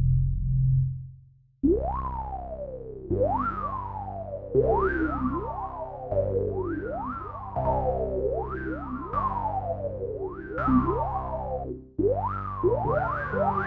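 Waldorf Quantum synthesizer playing a repeating pattern of notes, one about every second and a half, each with a resonant filter sweeping quickly up and then falling back, over a low bass part. An earlier held sound fades out in the first second, with a brief gap before the pattern starts.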